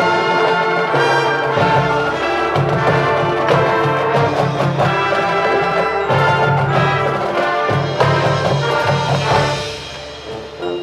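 High school marching band playing its field show, the brass section prominent and loud, dropping to a softer passage near the end.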